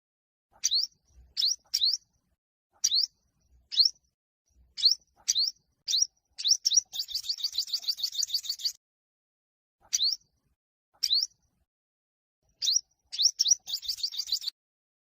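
Olive-backed (yellow-bellied) sunbird singing in a competitive song: sharp, short, upward-sweeping chirps, singly or in quick pairs, broken twice by a rapid trill of about ten notes a second that lasts a second or two.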